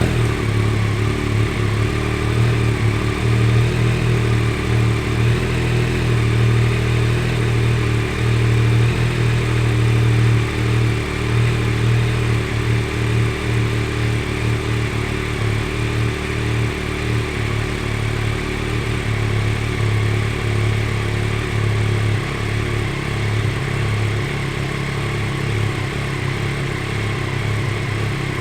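Yamaha Tracer 9 GT's 890 cc inline three-cylinder engine idling steadily, just after being started. The idle hum holds a constant pitch, with the level easing slightly in the last few seconds.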